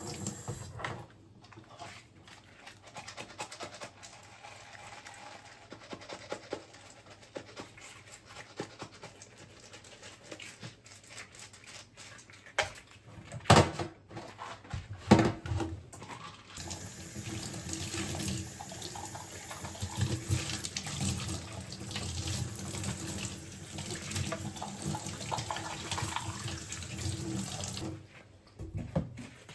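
A water tap runs into a sink for about eleven seconds, starting a little past halfway and shut off shortly before the end. Before it come small clinks and handling noises, with two sharp knocks about a second and a half apart near the middle.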